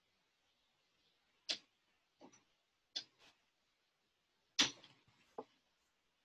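Scattered sharp clicks and light taps, about six in all, from someone working a computer at a desk. The loudest come about a second and a half in and again just past four and a half seconds.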